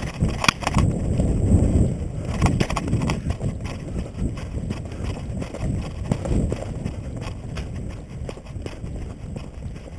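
Footsteps of a person moving quickly along a dirt path through brush, heard from a head-mounted camera, with uneven thumps and rustling of vegetation and gear. A couple of sharp clicks come about half a second in.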